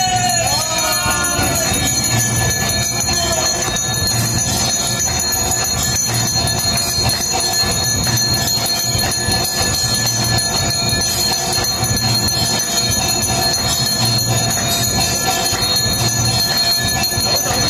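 Temple bells rung without pause for an aarti, a dense continuous clanging of many steady high tones, with a low beat repeating about every second and a half underneath.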